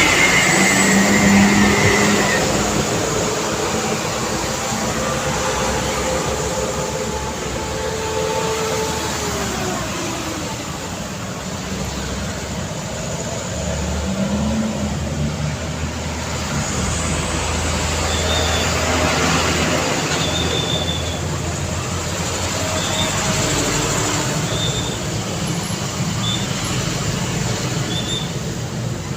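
Busy street traffic: cars, motorcycles and trucks passing in a steady stream, engines and tyres rising and falling as each goes by. In the second half a short high chirp repeats every second or so over the traffic.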